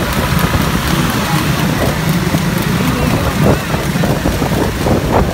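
Motorcycle engine running at road speed, a steady low drone under road noise.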